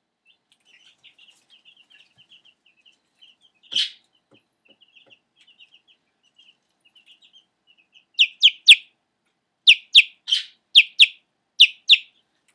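A young chicken chick peeping. Soft, quick little peeps for the first several seconds, with one louder peep about four seconds in. From about eight seconds in comes a run of loud, sharp peeps, each sliding down in pitch.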